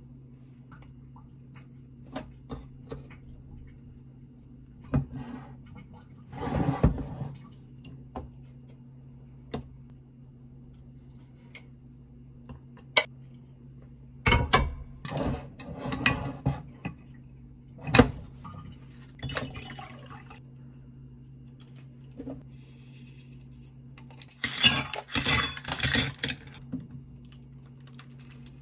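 Kitchen handling sounds: metal tongs and ceramic dishes clinking and knocking, and dishes set down on a stone counter, over a steady low hum. Near the end comes a dense clatter of ice cubes going into a glass.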